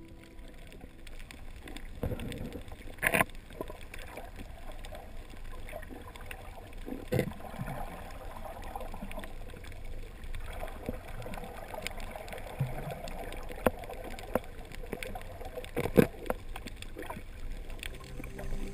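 Underwater ambience picked up through a GoPro's waterproof housing: a muffled, steady water noise with a few sharp knocks and clicks, the loudest about three seconds in and about sixteen seconds in.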